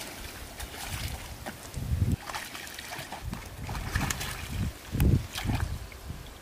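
Hooked fish thrashing at the surface of a pond, making irregular splashes, the heaviest about two and five seconds in.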